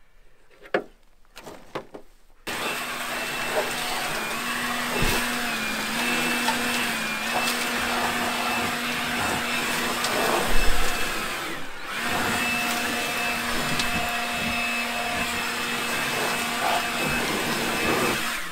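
After a couple of light knocks, a shop vacuum comes in about two and a half seconds in and runs steadily with a whine, sucking up debris from a bare car floor pan. It dips briefly about twelve seconds in.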